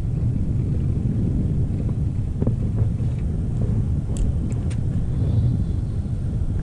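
A small boat's outboard motor running under way, heard as a steady low rumble mixed with wind on the microphone, with a few light clicks about four seconds in.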